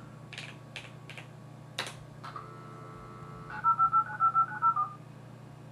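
A few key clicks, then a modem going off hook: about a second of dial tone followed by ten quick touch-tone (DTMF) digits as it redials a BBS's phone number through its speaker.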